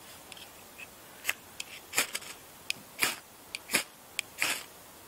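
A ferro rod (fire steel) being struck again and again into tinder: a run of short, sharp scrapes, roughly one every half to three-quarters of a second, with the loudest strikes in the second half as the tinder lights.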